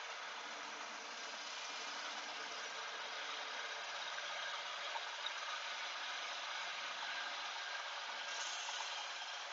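Shopsmith running steadily with its conical sanding disc spinning, an even whirring hiss, as jointer knives held in a fixture are fed past the abrasive to sharpen them.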